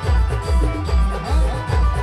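Adivasi band playing timli dance music: a heavy bass drum beat about twice a second under a wavering, ornamented melodic lead.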